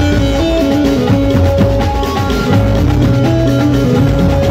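Live band playing loud music: a drum kit beat under a melody of held notes that step up and down, with no singing.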